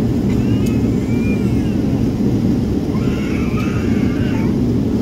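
Steady low cabin drone of a jet airliner in cruise flight, the engine and airflow noise heard from inside the cabin at a window seat.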